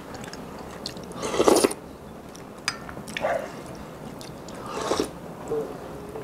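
A person slurping crab-meat soup with shark fin from a spoon: three short slurps, the loudest about a second and a half in, with a light click between them.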